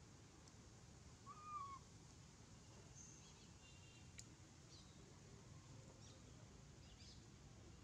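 Near-silent outdoor ambience with one brief, faint animal call about a second and a half in, and a few faint high chirps later.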